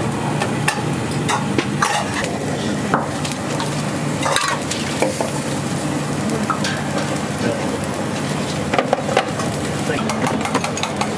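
Restaurant kitchen cooking noise: food sizzling in a pan, with metal utensils and dishes clinking and scraping at irregular moments over a steady low drone.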